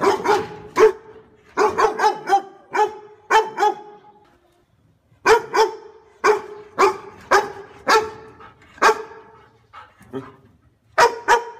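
Dog barking repeatedly in quick runs of several short barks, with a pause about four seconds in.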